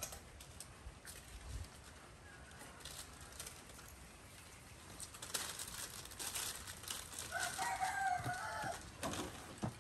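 A rooster crows once in the distance, about seven seconds in. Under it and around it come light scattered clicks and rustling as baby macaques clamber over a wicker shoe rack.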